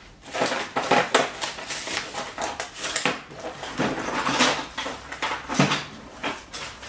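Hurried rummaging in search of a key: household objects clattering and knocking irregularly as they are pushed aside and handled.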